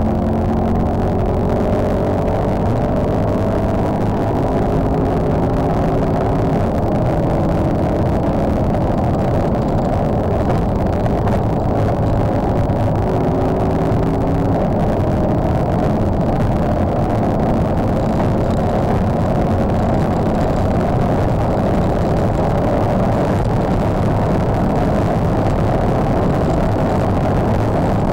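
Mercedes-Benz C63 AMG's V8 pulling hard under sustained acceleration at high speed, its note rising slowly in pitch over heavy road and wind noise, heard from inside the car.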